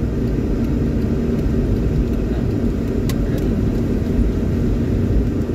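Steady low rumble of a car's engine and tyres on a rain-soaked road, heard from inside the cabin during heavy rain, with a faint steady hum and one sharp tick about three seconds in.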